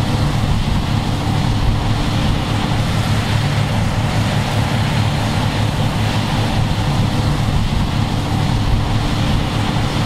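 Engine of heavy farm machinery running steadily, a low, even rumble.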